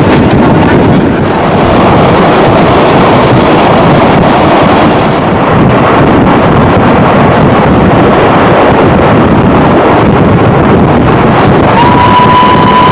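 Steam train running, heard from an open carriage window, with heavy wind buffeting on the microphone drowning out the detail. Near the end a single steady whistle note begins.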